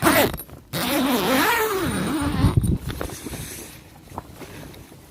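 A large zip on a PVC garage-tent door being pulled open, a rasp lasting about two seconds whose pitch wavers up and down as the pull speeds and slows, after a short knock at the start.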